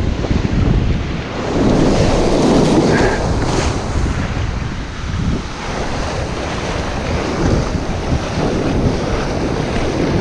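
Ocean surf breaking and washing up the beach, with strong wind buffeting the microphone; the rushing swells louder about two seconds in.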